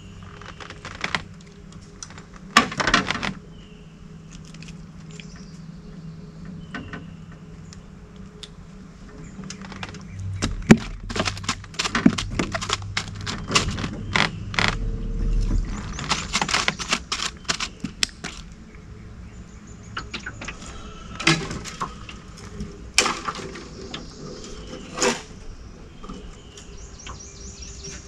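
Scattered knocks and clatter of fishing gear against a small boat's hull and deck as a bream pole is handled, busiest in the middle, with single sharper knocks near the end. A low steady hum stops about ten seconds in, and short bird chirps come and go.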